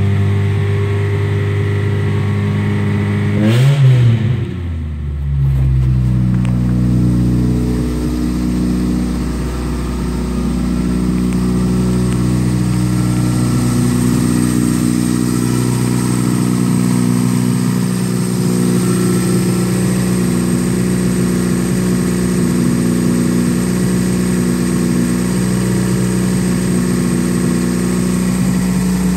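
1998 Chevy Prizm's 1.8L four-cylinder engine running at raised revs, near 3,000 rpm. About four seconds in it revs up briefly, then drops back and settles to a steady idle for the rest of the time.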